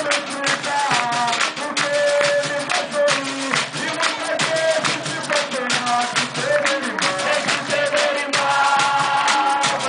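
Capoeira music: a sung melody over dense, fast percussion strikes.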